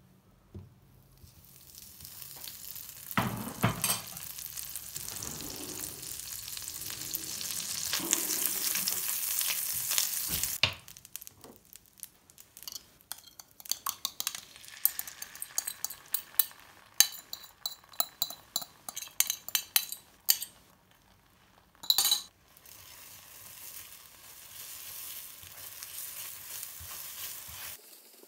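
Fat sizzling in a nonstick frying pan, building to a loud hiss. Then a run of quick clicks and taps as beaten eggs are spooned from a bowl into the pan, and a steadier sizzle as the eggs are stirred and scrambled.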